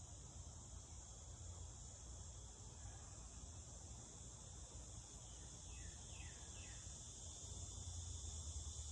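Faint, steady high-pitched chirring of an insect chorus, typical of crickets, over a low hum.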